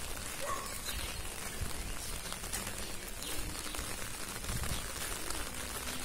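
Rain falling: a steady hiss with scattered small drop ticks.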